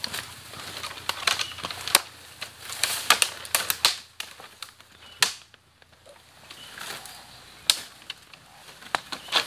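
Footsteps pushing through dense undergrowth: dry twigs and branches snapping underfoot and leaves rustling, in irregular sharp cracks, busiest in the first four seconds.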